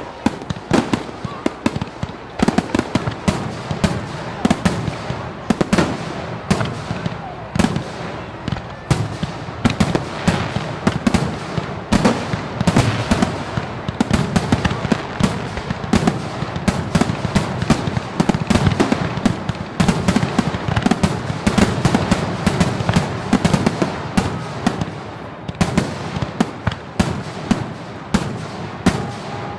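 Fireworks display: a rapid, continuous barrage of sharp bangs and crackles over a steady low rumble, easing off slightly near the end.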